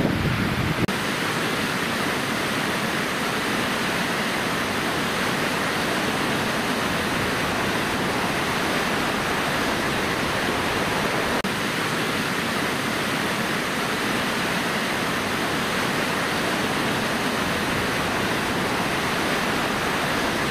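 The flooded River Irwell running high and fast, a steady, even rush of water.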